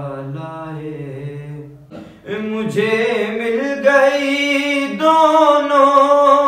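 A man's solo unaccompanied voice singing a naat (an Urdu devotional poem in praise of the Prophet) in long, drawn-out notes. Lower notes come first; after a short break about two seconds in, the melody rises to higher, louder notes.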